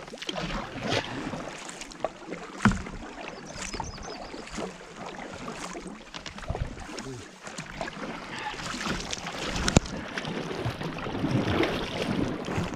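Canoe being paddled on flat water: the paddle dips and splashes, and water washes along the hull. A few sharp knocks come through, the loudest a little over two seconds in and again near ten seconds.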